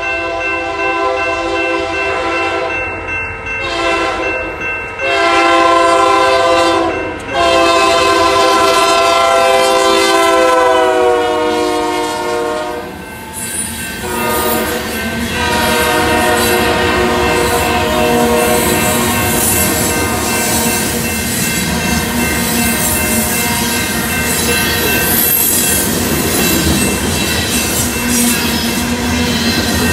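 Union Pacific diesel freight locomotive's horn sounding several blasts at a grade crossing. The last blast is long and slides slightly down in pitch as the locomotives pass, about 13 seconds in. After that, covered hopper cars roll past with steady wheel-on-rail noise and some thin wheel squeal.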